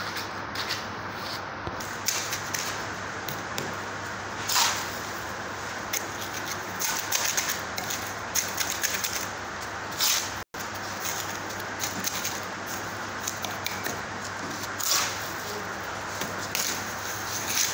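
A mason's trowel scraping and tapping wet cement mortar on top of a brick course: irregular short scrapes and clicks, with a few louder scraping strokes, over a steady low hum.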